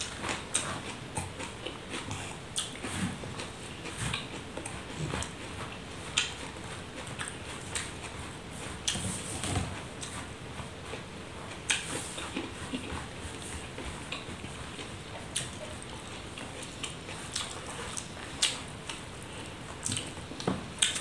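A man eating rice by hand from a banana leaf: chewing mouthfuls, with irregular short clicks and rustles as his fingers gather and mix the rice on the leaf.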